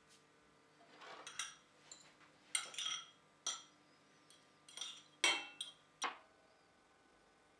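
Metal fork clinking and scraping against a ceramic bowl as raw shrimp are tossed with salt and black pepper. There are several sharp clinks between about one and six seconds in, the loudest a little after five seconds.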